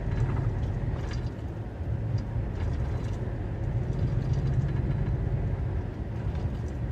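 Truck engine running with road noise while driving, heard from the cab: a steady low rumble.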